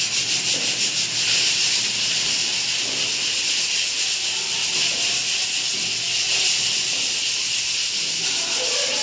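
Sheet-metal top of an air cooler being sanded by hand, a steady scratchy rasp in quick, even back-and-forth strokes, several a second: the old surface is being rubbed down before painting. The sanding stops at the end.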